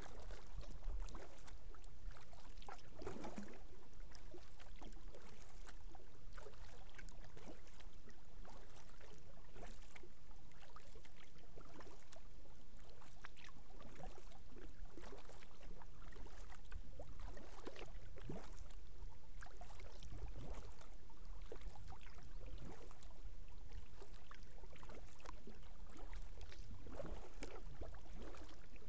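Kayak paddle blades dipping into calm water with repeated soft splashes and drips, over a steady low rumble.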